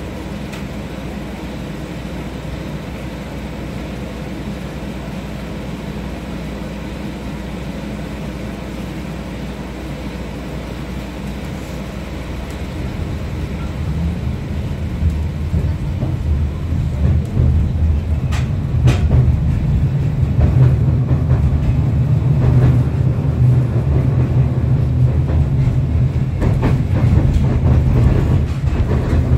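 Interior running noise of a 71-631-02.02 low-floor tram car. At first there is a steady low hum. About 13 seconds in it grows louder as the tram gets under way, becoming a low rumble of wheels on rails with scattered clicks and rattles.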